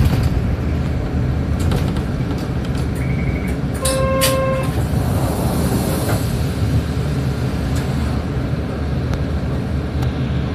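City bus driving, heard from inside near the front: a steady low engine and road rumble. About four seconds in a single short flat tone with overtones sounds, a beep or horn-like toot, preceded by a brief high beep.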